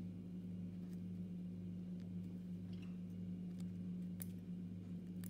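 Quiet room tone with a steady low hum and a few faint ticks.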